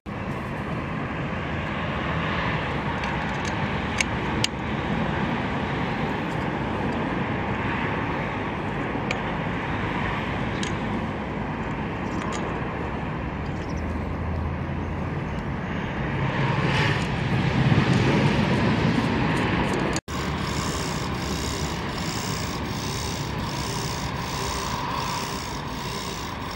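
Steady outdoor background noise with no clear machine tone, swelling louder for a couple of seconds past the middle. It breaks off suddenly about twenty seconds in and carries on with a slightly different texture.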